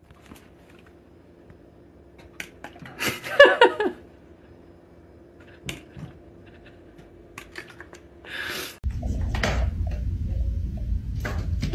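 A steady low hum with scattered light clicks and knocks, a short wavering cry about three seconds in, and a short hiss a little after eight seconds. Then a louder low rumble with knocks fills the last few seconds.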